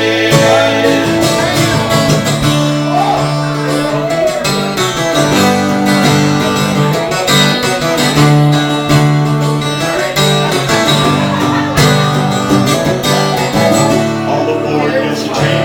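A band playing an instrumental break between sung verses, led by guitar.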